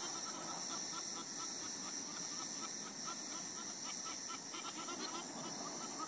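Wildlife ambience: a steady high-pitched drone with a rapid series of short, evenly repeated calls, about three or four a second, over a continuous rustling hiss.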